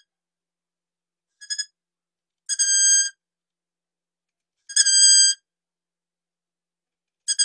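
Long-eared owl calling: a high, thin, squeaky note held at one pitch for about half a second, repeated about every two seconds, with two short clipped notes between the first calls.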